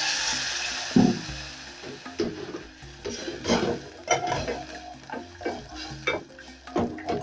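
Wooden spoon stirring and scraping in a metal pot of onions, tomato paste and water, with irregular knocks against the pot. The sizzle of water hitting the hot pan fades out over the first second or so.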